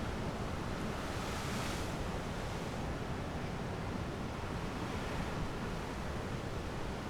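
Sea surf and wind: a steady rushing wash of noise that swells briefly about a second in.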